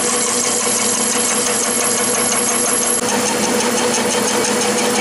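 Clausing metal lathe running with its spindle turning: a steady motor and gear hum with a faint, rapid, even ticking, during a groove-cutting operation on a V-pulley.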